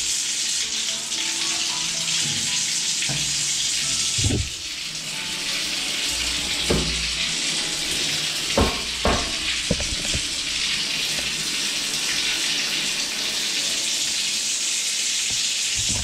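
A shower running: a steady stream from the hand shower pouring onto a tiled floor, at the increased flow given by newly upsized hot-water pipes. A few short knocks sound over it around the middle.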